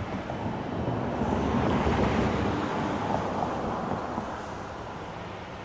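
Wind gusting on the microphone: a rushing rumble that swells about a second in, peaks near two seconds and fades away again.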